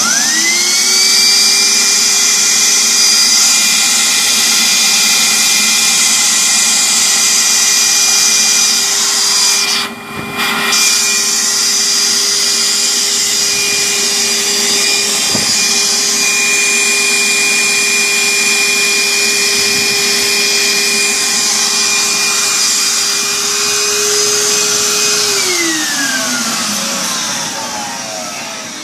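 1400-watt sawdust vacuum switched on: the motor spins up to a steady high whine, dips briefly about ten seconds in, runs on steadily, then is switched off and winds down with a falling pitch near the end.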